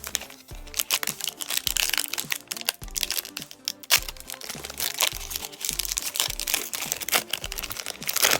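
Crinkling and tearing of a foil trading-card pack wrapper as it is opened and handled, a dense run of irregular crackles, over background music with a steady repeating bass beat.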